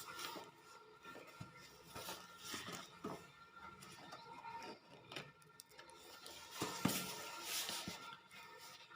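Parcel packaging being handled and opened: irregular crinkling, rustling and clicking, with a louder rustle about seven seconds in, over faint background music.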